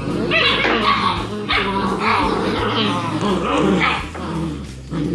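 Six-week-old German Shepherd puppies yipping and barking as they play-fight, several small voices overlapping without a break.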